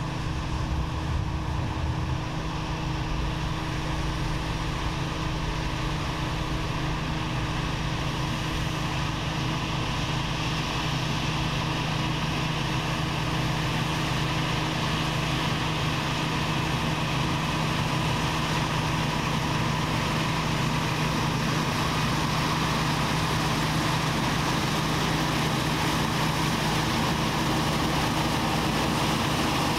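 Claas Dominator 98 SL combine harvester running steadily with a constant engine hum, slowly growing a little louder.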